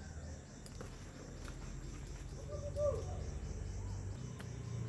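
Insects, crickets by the sound, chirping steadily in a fast, even, high-pitched pulsing, with a low rumble underneath and a brief faint call near the middle.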